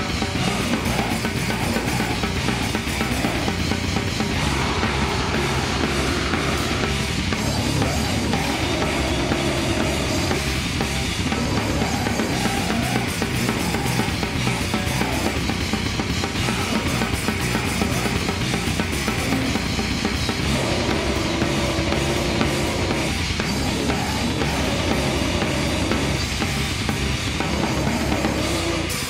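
A metal band playing a song live at full volume: a drum kit with a heavy bass drum driving the beat, under distorted electric guitars.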